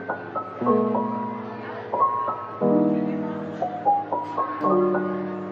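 Background music: a mellow piano track, held chords changing about every two seconds with short melody notes stepping over them.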